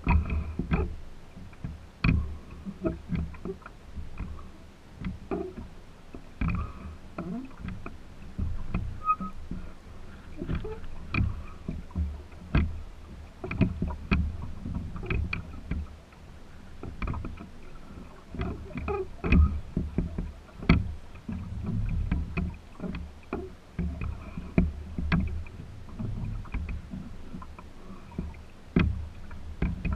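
Water gurgling and slapping along the wooden hull of a small sailboat under way, over a low rumble of wind on the microphone, with many irregular sharp clicks and knocks.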